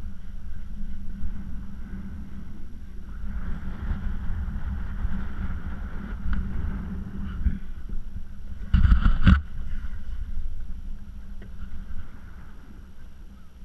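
Wind buffeting the microphone over small waves lapping against a plastic sit-on-top sea kayak rocking at rest, with one short loud knock about nine seconds in.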